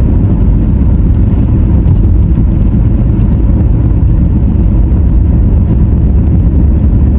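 Car driving along the road: a steady, loud low rumble of road and engine noise.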